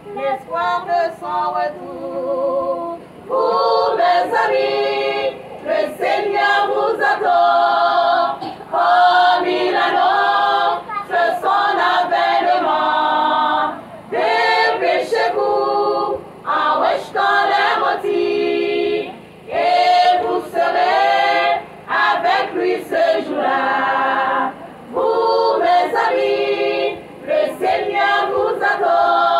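Women's choir singing unaccompanied, in sung phrases of a few seconds each with short breaths between them.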